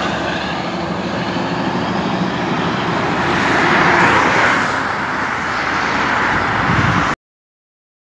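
Highway traffic noise as a tractor-trailer passes and pulls away with cars following, tyre and engine noise swelling again about four seconds in. The sound cuts off abruptly about seven seconds in.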